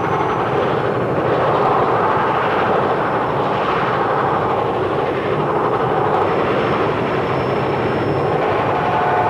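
Cartoon train sound effect: the steady rushing rumble of a train running along, swelling and easing slightly.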